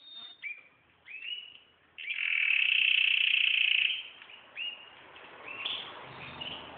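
A caged songbird singing: a few short rising chirps, then a loud fast rolling trill lasting about two seconds, then more short chirps.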